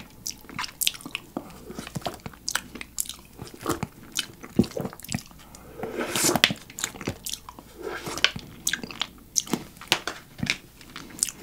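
Close-miked wet mouth sounds of licking plain yogurt off a foil cup lid: an irregular run of sharp tongue and lip smacks.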